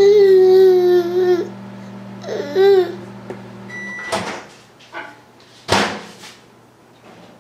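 Baby's loud, drawn-out vocal 'aah' lasting over a second, then a shorter cry that rises and falls about two seconds in. Behind it a steady appliance hum stops just after a short high beep about four seconds in, followed by two sharp clattering noises.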